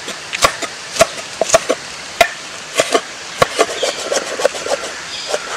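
Large kitchen knife chopping onion, then cutting cucumber into thin strips, on a wooden cutting board: irregular sharp knocks of the blade striking the board, roughly two a second.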